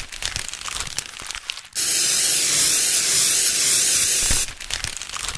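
Crinkling paper, then about two seconds in a loud airbrush spray hiss that lasts about two and a half seconds and cuts off suddenly, followed by more paper crinkling and scratching.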